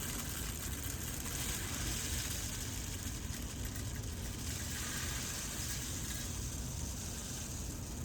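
Dry birdseed being poured into a plastic tube bird feeder: a steady, continuous hiss of seed pouring down the tube.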